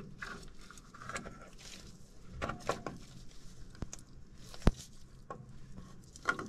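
Slit rubber hose being worked by gloved hands over a sealant-coated oil pipe, a second sleeve to stop a leak: soft rubbing and scuffing with a few light clicks, the sharpest about two-thirds of the way through.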